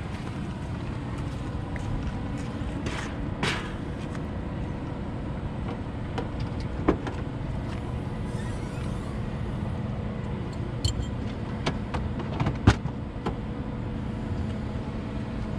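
Clicks and knocks of a Toyota Prius's rear hatch and fold-down rear seats being worked by hand, a few short sharp ones spread out, the loudest about three-quarters of the way through, over a steady low rumble.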